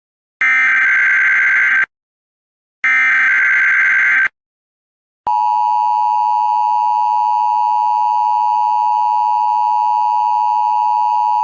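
Emergency Alert System tones: the last two bursts of the digital SAME header, each about a second and a half long with a second's silence between. From about five seconds in, the steady two-tone EAS attention signal starts and holds.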